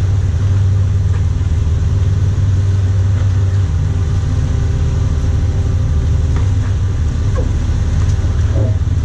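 Sportfishing boat's inboard engines running steadily, a low constant rumble.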